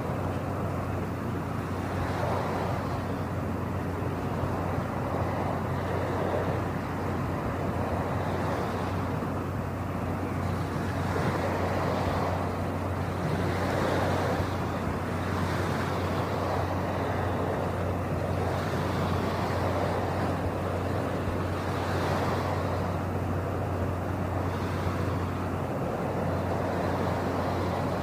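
Steady low hum under a rushing background noise that swells and fades every couple of seconds.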